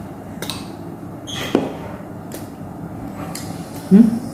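Eating noises of a person eating rice and curry straight from the plate without hands: a few short clicks and smacks scattered through, and a brief low voiced sound, like a hum, near the end.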